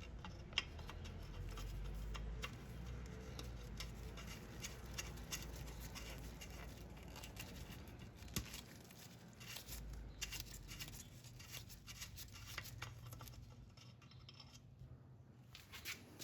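Faint scattered clicks, scrapes and rustling of hands handling parts while the ATV's oil level is checked after a refill.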